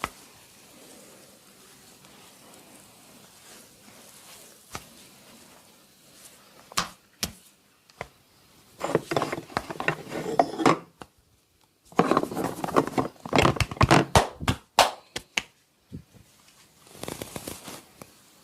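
Hands working over skin and hair in a barber massage: a few single sharp clicks, then two stretches of dense rubbing and quick strokes, the second the loudest.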